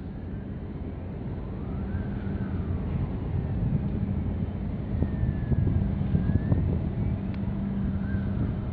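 Low, steady drone of ship engines carried across the harbour water, slowly growing louder, with wind rumbling on the microphone. Faint high rising-and-falling tones sound now and then.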